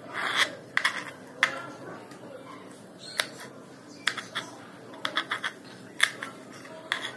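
Kitchen knife slicing a cucumber into strips on a plastic cutting board: irregular sharp taps of the blade striking the board, with faint scraping between them.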